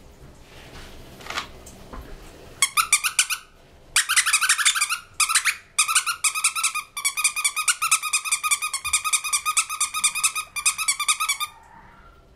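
Squeaky plush ball dog toy squeezed quickly and repeatedly by hand, giving several runs of fast, high squeaks with short pauses between them.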